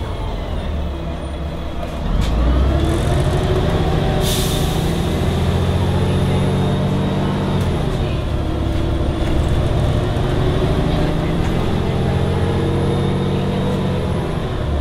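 Volvo Olympian double-decker bus engine pulling away through the gears of its Voith automatic gearbox, heard from the upper deck: the engine note climbs, drops at a gear change about halfway through, climbs again and drops again near the end. A short hiss of air sounds once early on.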